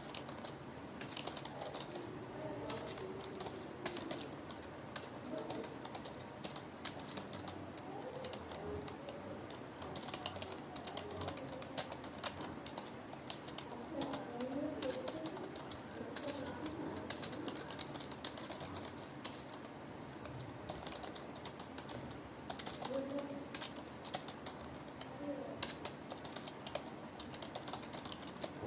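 Continuous typing on a computer keyboard, the keys clicking at an irregular, unbroken pace.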